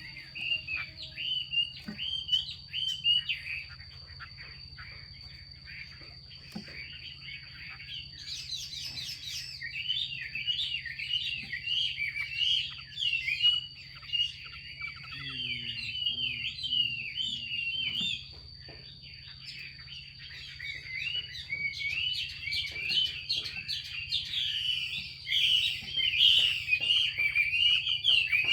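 Female Chinese hwamei giving rapid, chattering 'xùy' calls in bouts of quick short notes, with brief pauses between bouts. These are the calls used to excite a male hwamei into singing.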